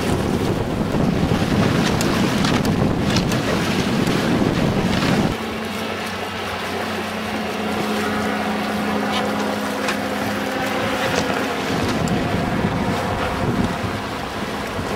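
Wind buffeting the microphone and water rushing past the hull of a sailing trimaran. About five seconds in the wind noise drops suddenly and a steady low hum is heard for several seconds, then the wind and water noise comes back.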